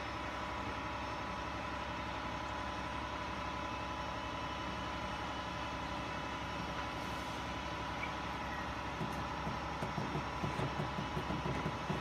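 A crane's engine running steadily while it lowers a load, with a steady whine on top; an uneven low rumble comes in about nine seconds in.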